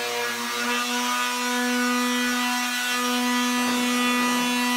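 Handheld electric sander running with a steady hum as it sands the oil paint and gesso surface of a canvas, with a rougher scuffing near the end.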